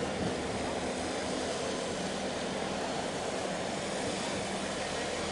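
Steady low drone of the large container ship Ever Gentle's engines and machinery as its hull passes close by, under an even hiss.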